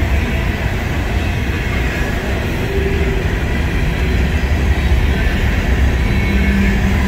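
Covered hopper cars of a freight grain train rolling past: a steady low rumble of steel wheels on rail.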